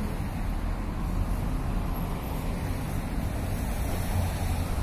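A steady low rumble of outdoor background noise, with no distinct events.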